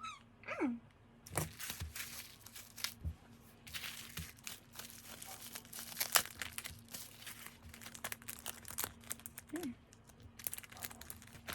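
Packaging being crinkled and torn open by hand while unwrapping merchandise, an irregular run of rustles and crackles.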